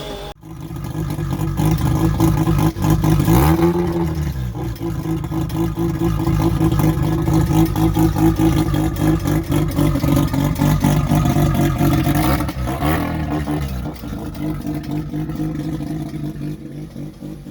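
Mazda 13B turbo rotary engine running steadily, with a brief rev about three and a half seconds in and another about thirteen seconds in. The sound eases off near the end.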